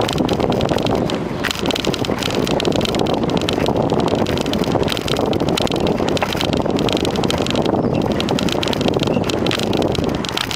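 Wind buffeting the microphone of a camera carried on a moving bicycle: a steady, loud rush with many small clicks and rattles.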